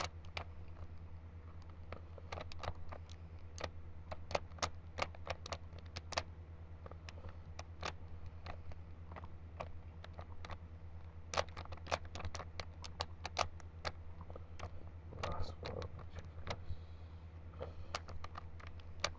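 Rubik's Cube being turned by hand: quick runs of plastic clicks and clacks as the layers rotate, with short pauses between move sequences. A steady low hum sits underneath.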